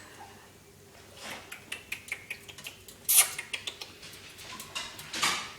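Green-cheeked conure bathing and drinking at a glass of water: a run of small clinks, taps and splashes, the loudest about three seconds in.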